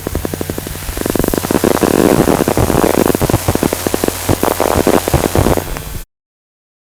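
Hi-tech digital glitch sound effect: rapid stuttering crackle and static over a steady low electronic hum. It grows denser and louder about a second in, then cuts off suddenly.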